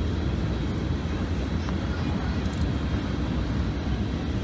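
Union Pacific diesel-electric freight locomotives moving a long train past, a steady low rumble of engines working under load.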